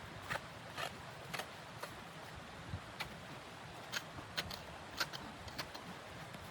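Footsteps, about two a second, less regular in the second half.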